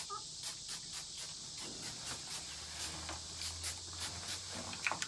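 Insects calling: a steady high buzz with a regular high chirp repeating several times a second.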